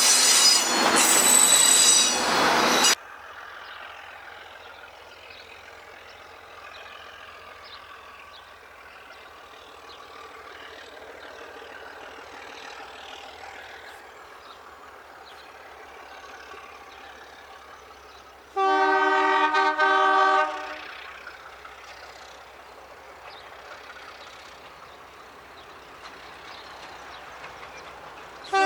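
Train wheels squealing loudly on the rails and stopping suddenly about three seconds in, then the low steady rumble of the train running. About two-thirds of the way through, the Alco diesel locomotive's horn sounds one blast of about two seconds, and a short horn note comes right at the end.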